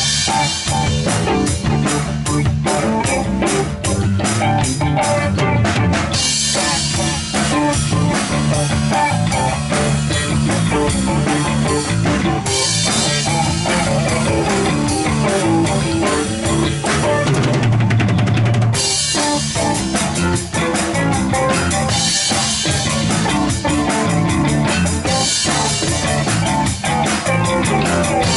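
A rock band playing an instrumental jam, the drum kit to the fore with bass drum and snare driving a steady beat under the guitar.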